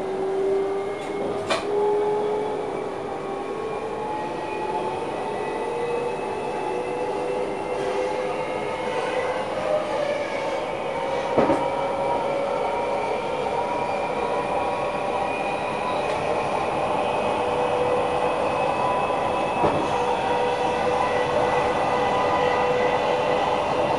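Inside the driver's cab of an NS Sprinter Lighttrain (SLT) electric multiple unit on the move: the electric drive's whine climbs slowly in pitch as the train gathers speed, over steady rolling noise from the wheels and rails. A few sharp clicks come from the wheels on the track, the clearest about halfway through.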